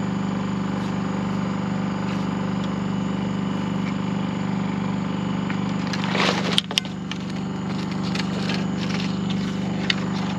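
Portable generator running steadily. About six seconds in, a splash and a sharp knock as a flounder gig and a dip net are plunged into shallow water, followed by a few lighter splashes and ticks as the net is worked and lifted.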